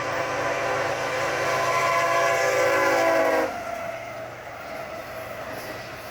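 Locomotive air horn sounding one long chord that cuts off about three and a half seconds in, leaving the low rumble of the train.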